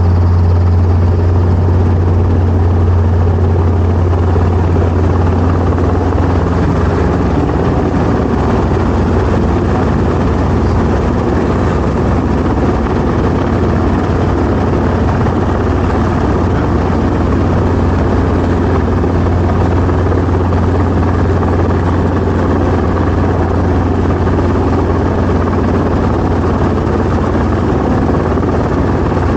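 Helicopter rotor and engine running steadily: a strong, constant low hum under a dense rushing noise, with no change in pitch.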